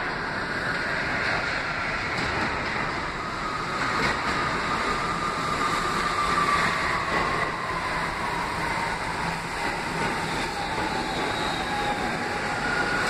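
A New York City subway train pulling into an underground station: a steady rumble of wheels on rail with a motor whine that falls steadily in pitch as the train slows to stop.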